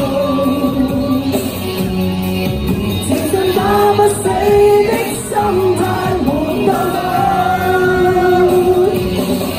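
A woman singing a fast Cantopop rock song live over loud, full accompaniment.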